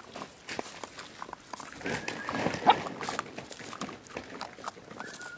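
An adult dog and puppies eating dry kibble off newspaper: quick crunching and chewing clicks, with a short high whine a little before two seconds in and a sharp yelp a moment later.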